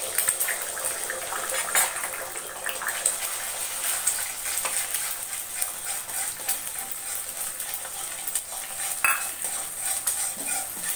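Eggs frying in hot mustard oil in a steel kadai, sizzling steadily, while a metal spatula scrapes and clinks against the pan as they are scrambled.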